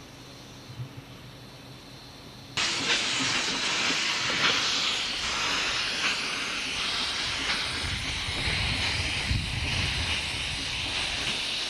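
A faint low steady hum for the first two or three seconds, then steam suddenly starts hissing loudly and steadily from a small 2 ft gauge narrow-gauge steam locomotive. A low rumble joins in from about eight seconds in.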